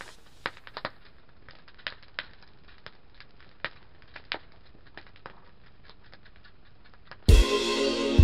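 Wood fire crackling: faint, irregular pops and snaps from burning logs, a few each second. Music cuts in abruptly near the end.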